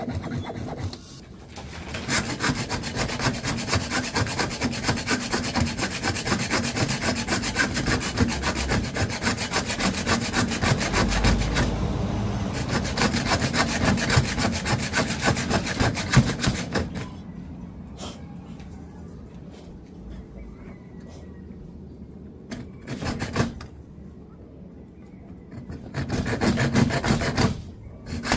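Mini hacksaw cutting through metal on an old suitcase's wheel mount, with rapid, steady back-and-forth strokes that stop about 17 seconds in. Near the end come a few shorter bursts of sawing.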